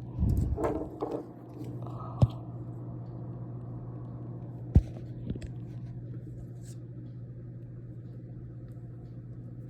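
Handling noises in a kitchen: rubbing and clatter in the first second, then two sharp knocks a few seconds apart, over a steady low hum.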